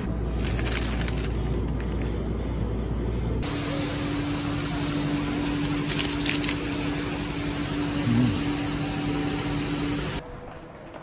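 Steady background noise of a ramen shop, which changes abruptly a few seconds in to the steady hum and traffic-like noise of a street. A few brief crackles come about six seconds in, where a snack's foil wrapper is being handled.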